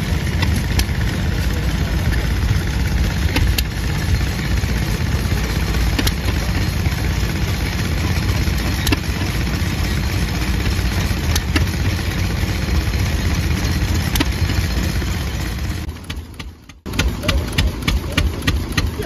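Vintage stationary engines running: a steady low chugging with occasional sharp ticks. About two-thirds of the way through, the sound cuts and a different engine takes over with a quick, even beat of sharp ticks, several a second.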